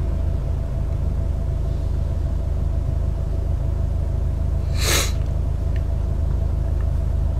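Steady low rumble of a car heard from inside its cabin, with one short sharp hiss about five seconds in.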